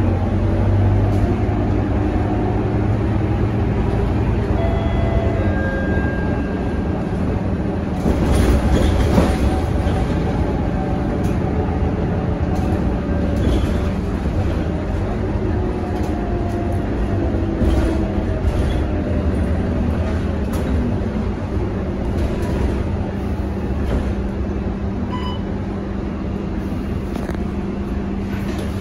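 Interior sound of a Scania K230UB city bus on the move: its 9-litre five-cylinder diesel runs steadily, its pitch rising as the bus pulls away and falling again as it slows. A few short rattles and knocks from the bodywork and fittings come through over the hum.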